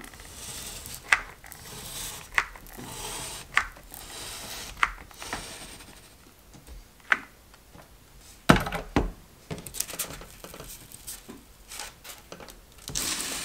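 A hot glue gun is worked along a foam board seam. Its trigger gives a sharp click about every second, four times, with a soft hiss between clicks. Midway there are a couple of dull knocks as the foam board sides are folded in and pressed down, then light handling ticks.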